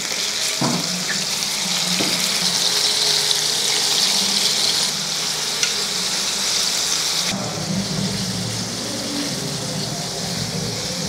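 Fish steaks sizzling steadily in hot oil in a stainless steel frying pan, with a couple of light fork taps on the pan as the pieces are turned over.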